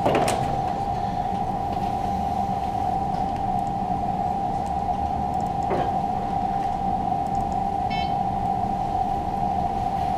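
A steady, high-pitched electrical whine from an idle Grizzly G0704 CNC mill with its motors energised but not cutting. There is a faint click about six seconds in and a brief cluster of high ticks about two seconds later.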